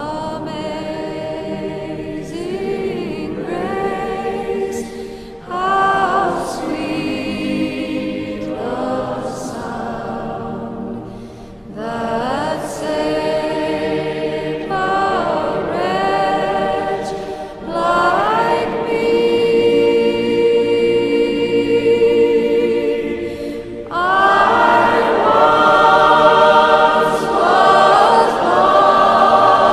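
Choir singing a slow piece in long sustained phrases, a new phrase starting about every six seconds, growing louder near the end.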